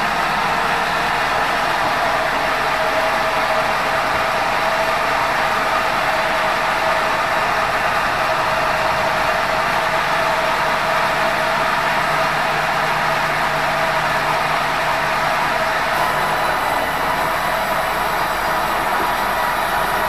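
Large sawmill band saw running steadily as a meranti log on the carriage is sawn, giving a constant mechanical hum and hiss with no break.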